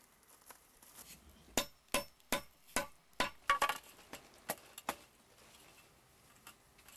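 A string of sharp taps and knocks, about a dozen over four seconds and unevenly spaced, as a lightweight expanded-clay (Leca) block is tapped into plumb against a spirit level.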